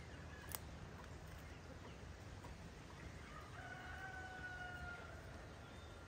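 A rooster crowing faintly: one long, steady, slightly falling call about four seconds in, over a low background rumble. A single sharp click comes just after the start.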